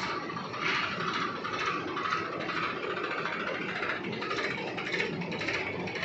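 Diesel engines of a JCB 3DX backhoe loader and a Farmtrac tractor running, a steady, uneven mechanical noise.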